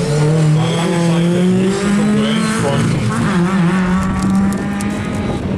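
Lada VFTS rally car's four-cylinder engine running hard as the car drives through a corner on a rally stage, its pitch holding steady with a brief dip and waver about three seconds in.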